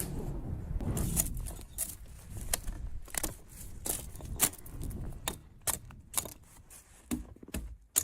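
An irregular run of sharp clicks and knocks, about two a second, over a low rumble that fades away in the first second or two.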